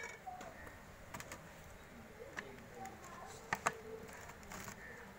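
A few sharp clicks and clinks from a steel ladle in an aluminium pot and a plastic cooking-oil bottle being handled, the loudest pair a little past halfway. Faint bird chirps sound now and then behind.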